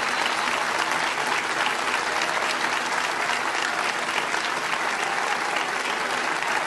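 A large audience applauding, a dense steady clapping that keeps on without a break.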